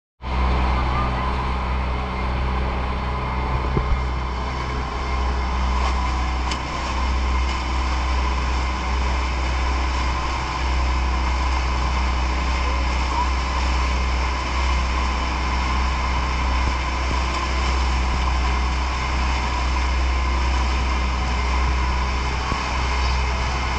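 Boat engine running steadily under way, a constant drone with a heavy low rumble.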